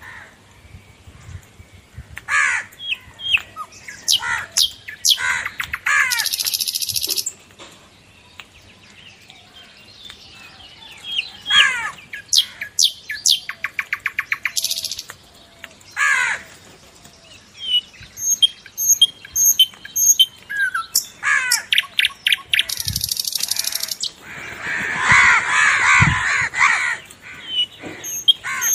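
Birds chirping and calling: many short chirps and quick trills, with a louder, harsher call a few seconds before the end.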